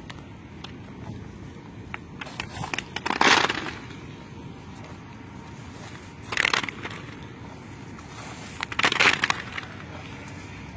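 Olive rake on a long pole combing through olive branches: three bursts of rustling leaves and twigs about three seconds apart as olives are knocked down.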